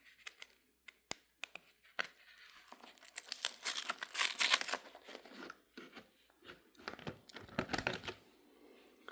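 Pages of a card notebook being handled and turned: a few light taps, then two spells of crinkling, rustling handling.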